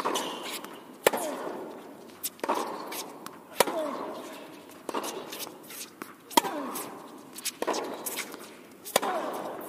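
Tennis rally: a tennis ball struck by racquets and bouncing on a hard court, a sharp impact about every second and a quarter. Each impact echoes in a large indoor tennis hall.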